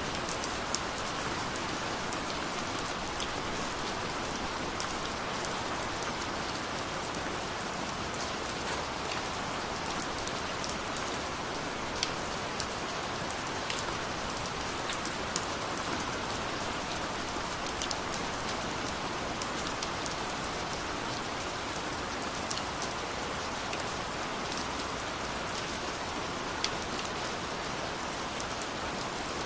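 Steady rain falling, an even hiss with scattered sharper drop hits close by.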